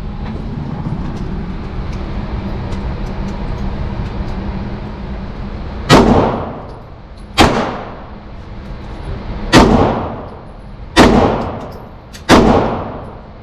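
A steady low rumble, then about six seconds in, five gunshots one to two seconds apart, each echoing and dying away in an indoor shooting range.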